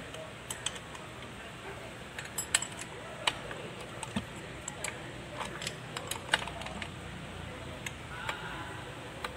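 Irregular sharp metallic clicks and clinks of the steel gears and shafts of a Kubota B6001 tractor transmission being handled and turned in the open gearbox case, with a few louder taps.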